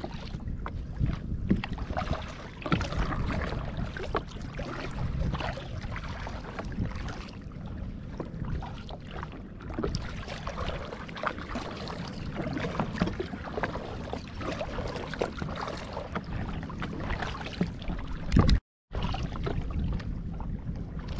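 Kayak being paddled: a double paddle's blades dipping and splashing in a steady run of strokes, with water sloshing against the hull. A louder knock near the end, then the sound drops out for a moment.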